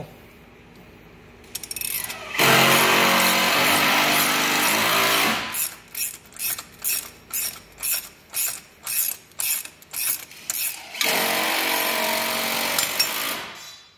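Hand ratchet turning a thread-chasing die down a steel stud, clicking in an even rhythm of about two or three strokes a second. Before and after the clicking, a loud steady power-tool whine from construction work next door drowns it out.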